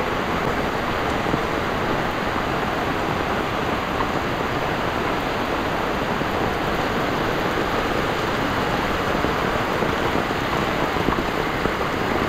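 Heavy tropical rain pouring steadily, mixed with the rush of muddy floodwater running down the road.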